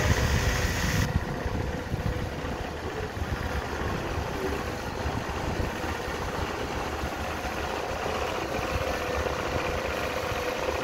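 Industrial sewing machine running steadily for free-motion embroidery, its needle stroking in a fast, even clatter over a steady motor hum. A brighter hiss at the start cuts off about a second in.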